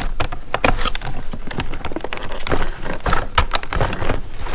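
Dense, irregular clicking, tapping and rustling of ratchet straps and their packaging being handled and pulled out of the box.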